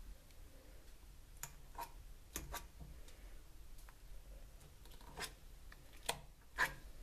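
A metal fork clicking and scraping against an enamel bowl as it mashes softening margarine. There are scattered faint clicks, some in quick pairs.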